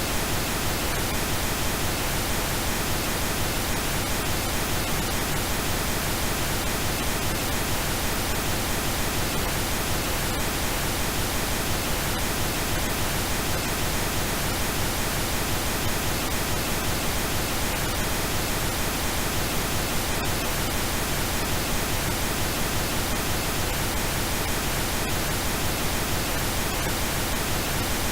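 Steady generated pink noise: an even, unbroken hiss across all pitches that does not change.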